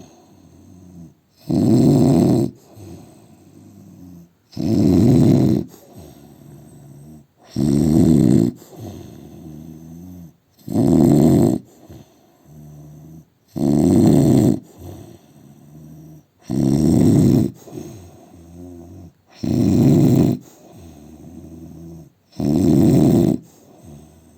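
A man snoring loudly in a steady rhythm: eight loud snores, each about a second long and coming about every three seconds, with quieter breathing in between.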